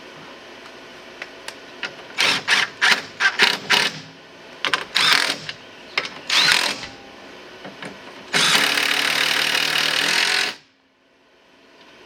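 Handheld power driver run in short trigger bursts, then held for a steady two-second run that stops abruptly, driving the fasteners of a transmission cooler mounting bracket. A few light clicks come before the bursts.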